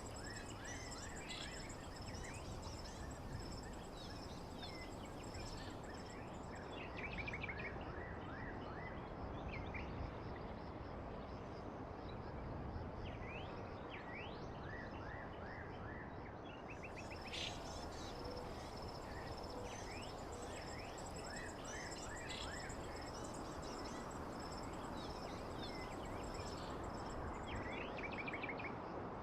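Birdsong ambience: many birds giving short chirps and quick trills over a steady background hiss, with a high, thin, continuous trill that fades out for a stretch in the middle.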